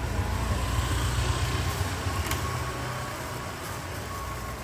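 Low rumble of street traffic with a light hiss, easing off about three and a half seconds in; a single light click about two seconds in.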